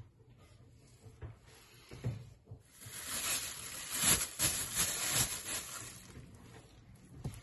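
Plastic wrap crinkling and rustling as it is lifted off a glass bowl, loudest through the middle of the stretch, with a few soft knocks on the wooden counter before and after.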